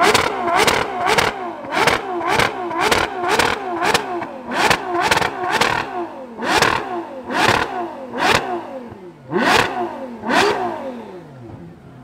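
Ferrari 812 GTS's naturally aspirated 6.5-litre V12 being revved in sharp blips, each snapping up in pitch and dropping straight back. The blips come about two a second at first, then spread out to roughly one a second, and near the end the revving stops and the engine dies down toward idle.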